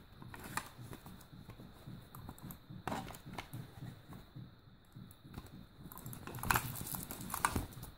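A small fabric drawstring pouch being opened and handled, with soft rustling and scattered light knocks and clicks as a wireless computer mouse is slid out of it.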